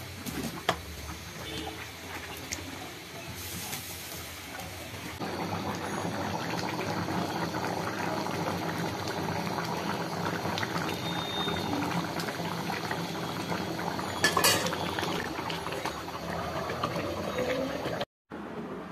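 Curry simmering and bubbling in a karahi, with a spatula scraping and clinking against the pan. The bubbling grows denser about five seconds in, and there is one sharp metallic clatter near the end.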